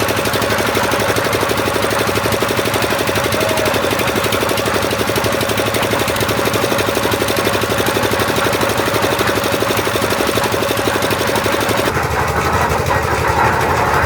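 Concrete mixer machine's engine running steadily with a fast, even beat. About twelve seconds in, the sound changes character.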